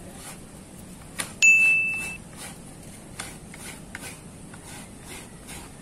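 Faint, steady, repeated scraping strokes, typical of fresh coconut being grated. About a second and a half in, a single clear high-pitched ding sounds and rings out briefly; it is the loudest sound.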